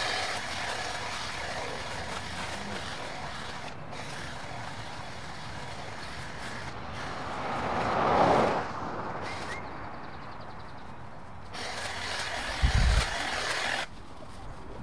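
An SUV driving past on the street, its tyre and engine noise swelling to a peak about halfway through and fading away, over a steady hiss. A short low thump comes near the end.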